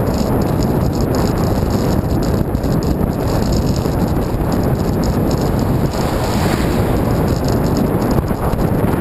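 Steady rush of wind buffeting the microphone of a bicycle-mounted camera while riding along a road.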